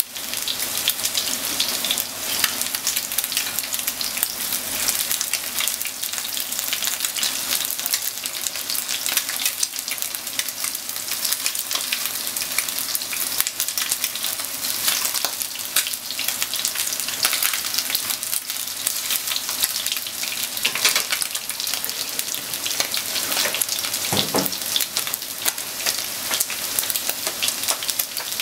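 Coated chicken pieces frying in oil in a non-stick frying pan: a steady, dense sizzle with fine crackling as chopsticks turn the pieces. A single dull knock comes near the end.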